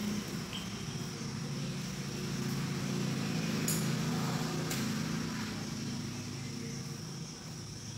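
A steady low mechanical hum that swells a little in the middle and eases off near the end, with two faint sharp clicks about a second apart midway.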